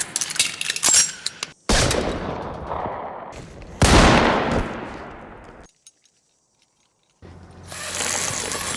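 Edited run of dramatic sound effects: a quick series of sharp clicks, then two loud bangs about two seconds apart, each fading away slowly. After a short silence, a steady rushing hiss fades in near the end.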